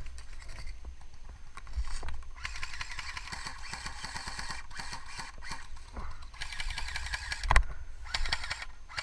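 Airsoft guns firing on full auto: three long bursts of rapid, even clicks. There is one sharp, loud crack about seven and a half seconds in.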